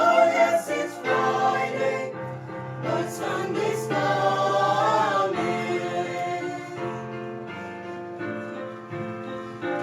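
A choir singing a gospel song over recorded music accompaniment, in long held notes.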